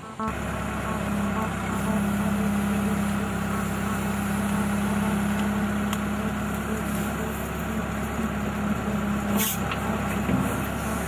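A heavy engine running steadily, a constant low hum and rumble that starts abruptly near the beginning.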